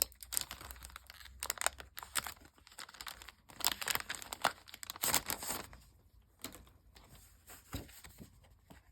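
Paper and packaging rustling and crinkling as a pack of decorative papers is opened and the sheets handled, with short tearing strokes. It is busiest in the first half and sparser after about six seconds.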